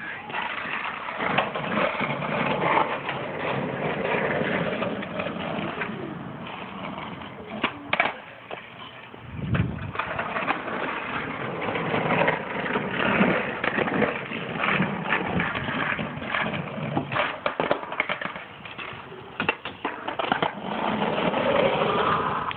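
Skateboard wheels rolling on asphalt, with repeated sharp clacks of the wooden deck and tail striking the ground as flatground tricks are tried.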